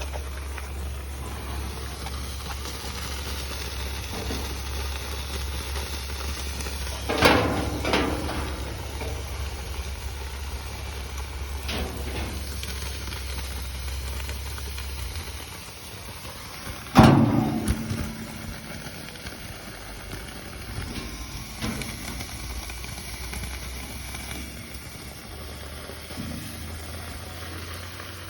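Water sprayed onto a hot steel car door, cooling it after oxy-torch heating, with a steady hiss. A steady low hum under it stops about halfway through, and several loud knocks break in: two close together about a third of the way in, one a little later, and the loudest just after the hum stops.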